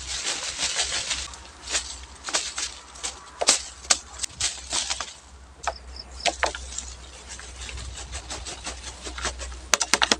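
Leaves and twigs of a guava bush rustling and snapping as a bamboo harvesting pole jabs and shakes the branches, with irregular sharp crackles and a quick flurry of snaps near the end. This is the shaking-down of a weaver-ant nest so the larvae and eggs (kroto) fall into the collecting cone.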